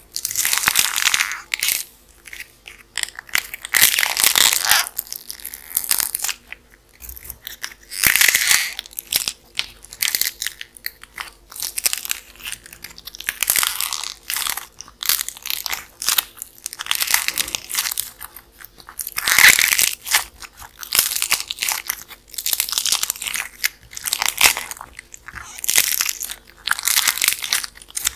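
Dried, painted modelling clay crackling and crunching as hands squeeze and tear it apart, in repeated bursts of a second or two with short pauses between.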